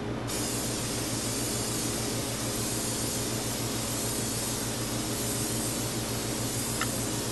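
Aerosol can of high-temperature stove paint spraying a light coat onto a metal panel: a steady, unbroken hiss that starts a fraction of a second in.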